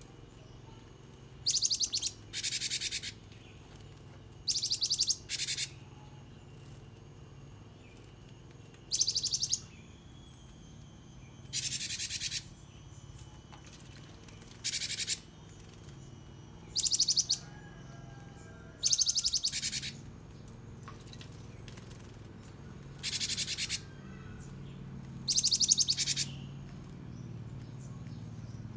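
Caged gelatik batu (gelatik wingko, the cinereous tit) singing in short bursts of rapid, high repeated notes, about a dozen phrases a few seconds apart, some in quick pairs. A faint steady low hum lies underneath.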